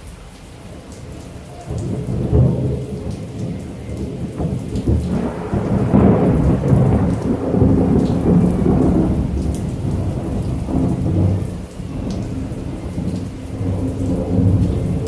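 Heavy rain falling, with a long roll of thunder that breaks in about two seconds in and rumbles on, swelling and easing.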